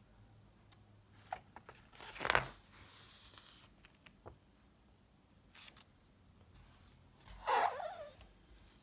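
Pages of a paper picture book being handled and turned: a loud swish of paper about two seconds in, a few light paper clicks, and another rustle near the end as the book is turned to its back cover.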